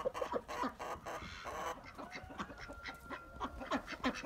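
Farmyard ducks quacking, mixed with many short scuffs and clicks.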